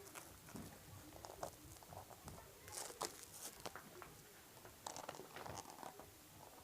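Faint crinkling, tearing and clicking of a Blu-ray's packaging being handled and opened, in scattered short strokes, the loudest about three seconds in.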